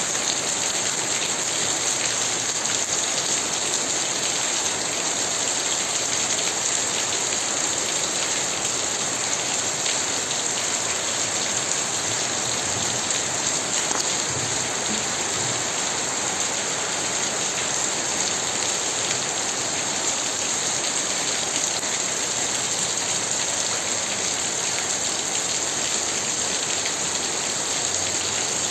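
Steady rain falling and pattering on surfaces, an even hiss of drops that neither builds nor eases.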